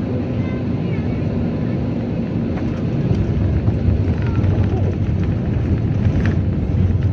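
Cabin noise inside an Airbus A320neo taxiing: a steady low rumble of engines and rolling airframe, growing a little louder about three seconds in.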